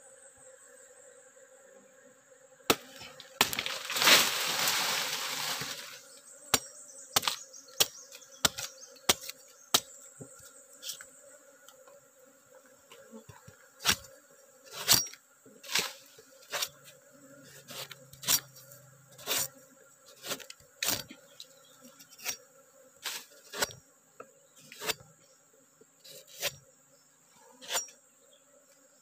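Sharp, repeated strokes of a machete cutting into a sugar palm's male flower stalk, with a rough rasping stretch of a few seconds about three seconds in. A steady high insect drone runs underneath.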